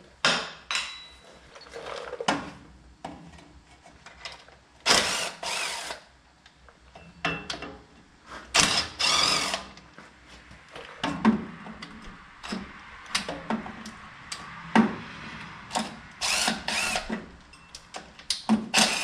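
Cordless power tool run in short bursts of a second or less, about ten times, backing out the bolts of a GM 6L90 transmission's oil pan so the pan can be dropped.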